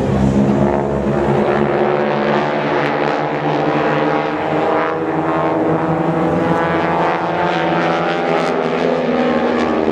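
Propeller airplane's piston engine droning steadily overhead, its pitch wavering slightly as it flies.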